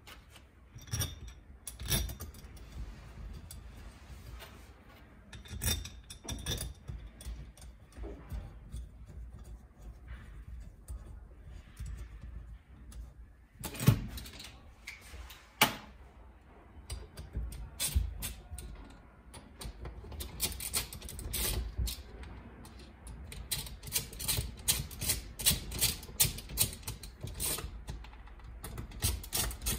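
Metal hand tools and engine parts clinking and clattering on a steel workbench as they are picked up and handled, with a sharp knock about halfway through and a quicker run of clicks in the last third.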